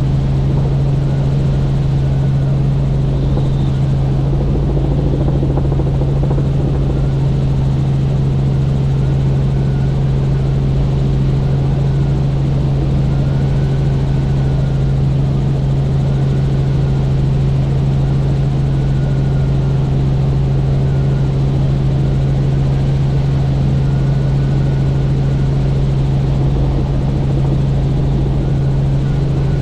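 Helicopter in flight, heard on board: steady rotor and engine noise with a strong, unchanging low drone, and a faint high whine that wavers every couple of seconds.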